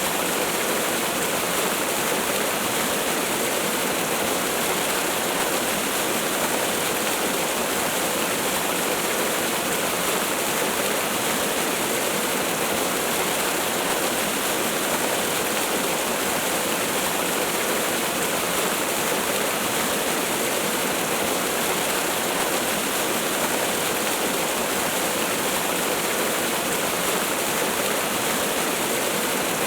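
Waterfall rushing steadily, an even hiss of falling water with little deep rumble and no change throughout.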